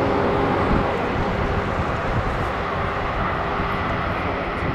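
Airbus A400M's four TP400 turboprop engines and eight-bladed propellers running as the transport rolls on the runway after landing: a loud, steady propeller and engine drone.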